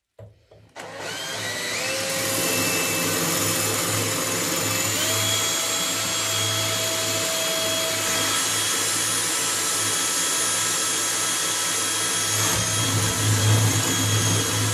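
Makita 18V cordless drill running steadily, drilling overhead with a long thin bit. Its motor whine starts about a second in and steps up in pitch twice as the trigger is squeezed harder. Near the end the sound gets rougher and louder.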